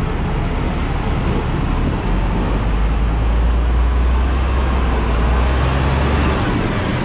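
City street traffic, with a large vehicle's engine rumbling close by from about two seconds in and dropping away near the end.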